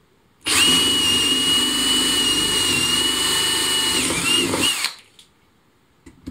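Aldi Workzone Titanium+ cordless drill boring a drill bit into a wooden plank: the motor starts about half a second in and runs with a steady high whine. Near the end of the hole the whine wavers and dips in pitch, then the drill stops sharply; a small knock follows about a second later.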